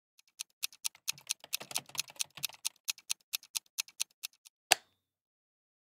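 Clock-ticking sound effect: a run of quick mechanical ticks, about four or five a second, ending in one louder click near the end.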